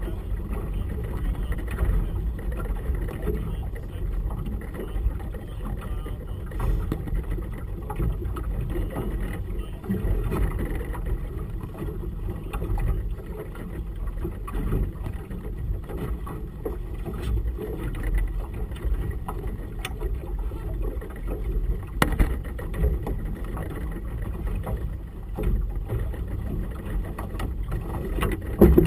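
Boat riding choppy water in gusty wind: a steady low rumble of wind and water. One sharp knock comes about two-thirds of the way through.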